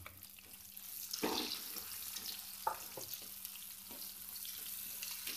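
Sliced onions sizzling in hot oil and cumin seeds in a kadhai, the sizzle swelling about a second in as the onions hit the oil. A few sharp clicks of a spatula stirring against the pan.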